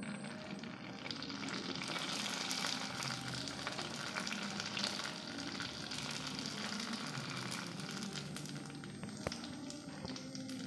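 Puris (panipuri shells) deep-frying in hot oil in a wok: a steady crackling sizzle as they puff up, with a fork turning them in the oil. One sharp click about nine seconds in.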